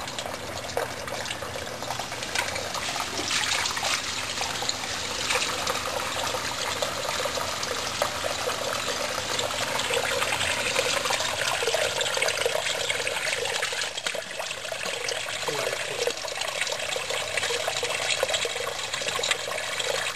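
Water from a garden hose running steadily into a sump pit, filling it to raise the float of the battery backup sump pump.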